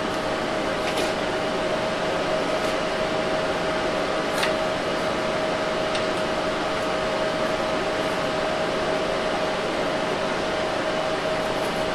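Steady whir with a constant hum from a running 1000-watt ZVS induction heater rig, its power supply and cooling working under load. A few faint clicks come as the thermocouple and steel are handled.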